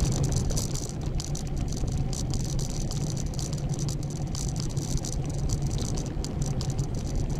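A loaded touring bicycle being ridden: fast, continuous rattling and ticking from the bike and its gear over a steady low rumble.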